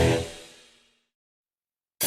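Loud band music with drums stops abruptly, its ring dying away in under a second, followed by dead silence.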